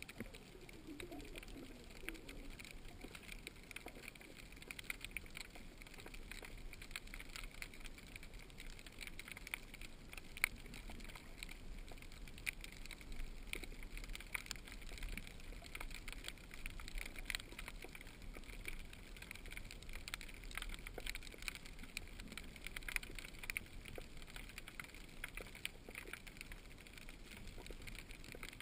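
Underwater ambience heard through a camera's waterproof housing: a faint steady hiss full of small, scattered crackling clicks, with a brief wavering burble about a second in.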